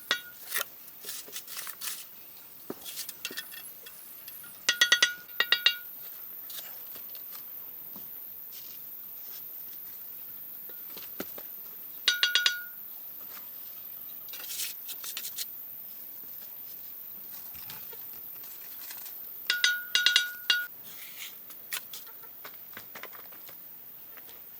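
Short clusters of ringing metallic clinks, a few quick strikes each, coming about 5, 12 and 20 seconds in, with lighter scattered clicks between them.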